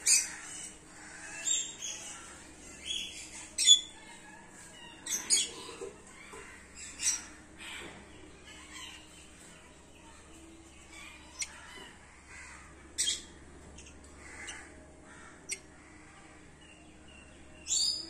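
Caged small parrots, red-rumped parakeets and lovebirds, giving short sharp chirps and squawks, one every second or two.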